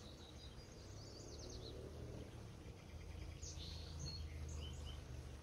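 Small birds chirping over a steady low background rumble: a quick trill of rapid notes about a second in, then scattered short higher chirps in the middle.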